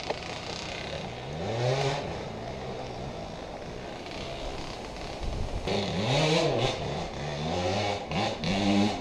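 A small motorbike-type engine revving up and down repeatedly as it is ridden, its pitch rising and falling with each blip of the throttle. It gets louder from about two-thirds of the way in.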